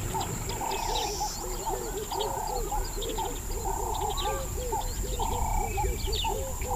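Dense wetland chorus of calling animals: many short notes repeating several times a second, scattered higher chirps, and a steady high-pitched insect drone.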